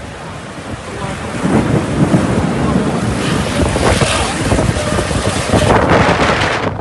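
Storm wind gusting hard across the microphone, a loud rushing and buffeting that builds about a second and a half in and stays loud.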